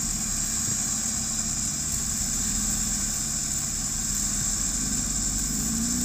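Off-road vehicle engine idling steadily, the revs lifting slightly near the end.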